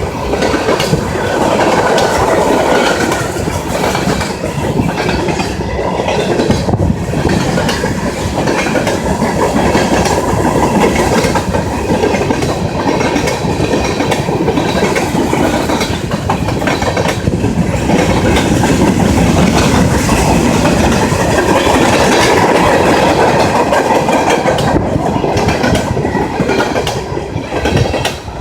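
Norfolk Southern freight train's cars rolling past, steel wheels clattering over the rail joints in a steady rumble and clickety-clack.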